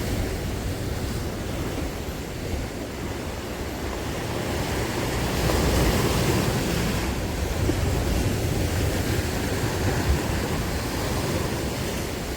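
Sea waves washing in, mixed with wind buffeting the microphone, swelling a little about halfway through.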